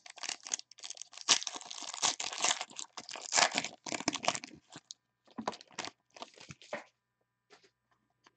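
Foil wrapper of a 2015 Panini Rookies & Stars football card pack being torn open and crinkled. Dense rustling and tearing for about five seconds, then a few scattered crinkles.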